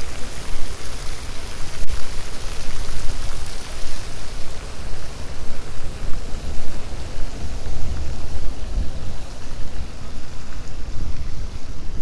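Wind buffeting the microphone in uneven gusts, over a hiss of splashing fountain jets that fades during the first few seconds.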